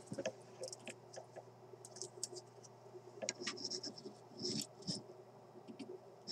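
Faint, scattered clicks and scratches of hand tools and wire leads being worked on an old radio chassis while its capacitors are replaced, over a steady low hum.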